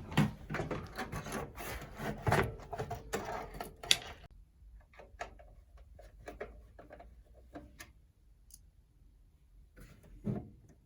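A PC power supply being slid into the case from the back: metal and plastic scraping and rubbing for about four seconds, then scattered light clicks and knocks as it is settled in place.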